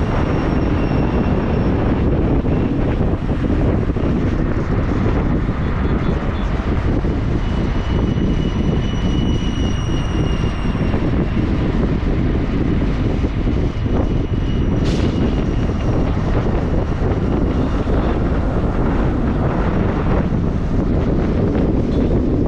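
Steady loud rumble of a moving vehicle, with wind buffeting the microphone, during a ride; a brief sharp sound about 15 seconds in.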